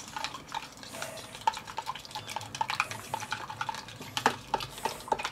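A metal spoon stirring liquid in a small plastic cup, with irregular light clicks and scrapes as it knocks against the cup's sides, mixing a broth-and-seasoning injection marinade.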